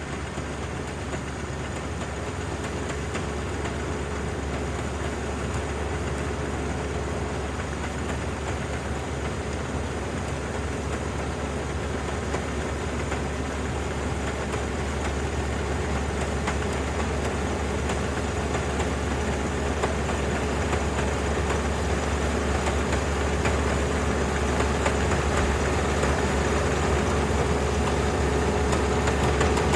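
Dynamax 470 combine harvester running steadily while harvesting rice, its engine hum and threshing machinery noise growing gradually louder throughout.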